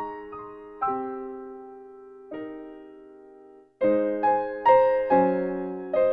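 Background piano music: notes and chords struck and left to ring and fade. It breaks off briefly a little past halfway, then comes back louder.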